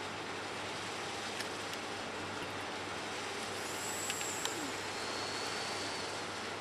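Steady rushing background noise with a low hum, like a distant urban or industrial ambience. A couple of faint clicks come about four seconds in, and a thin high whistle follows.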